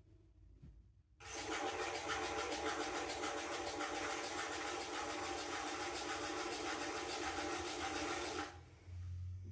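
Trimming tool scraping clay off a small pot as it spins on a pottery wheel: a steady, rhythmic scraping that starts about a second in and cuts off suddenly near the end.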